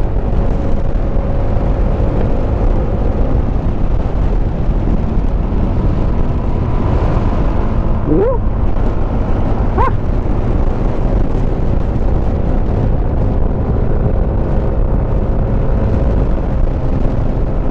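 Yamaha Smash motorcycle running steadily at riding speed, with its engine hum under a loud, steady rush of wind on the action camera's microphone. Two short rising squeaks come about halfway through.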